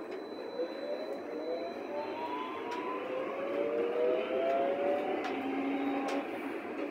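BVG HK-series U-Bahn train accelerating: its traction motors whine in several tones that climb slowly in pitch, over a steady running rumble.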